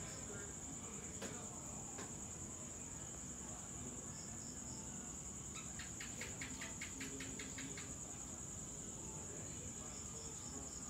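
Steady high-pitched chorus of crickets. About six seconds in, a rapid run of about a dozen clicking chirps lasts around two seconds.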